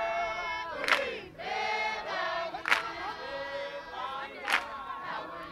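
A large group singing a Zulu ingoma song together in call-and-chorus style, with a sharp hand clap about every two seconds.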